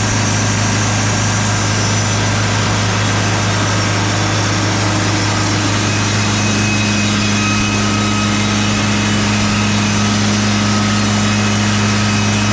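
Wood-Mizer LT40 Super Hydraulic band sawmill running steadily, its engine humming. A second, higher steady tone joins about six seconds in.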